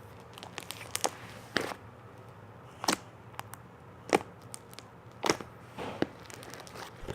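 Slime being squished and stretched by hand, making irregular sticky clicks and pops.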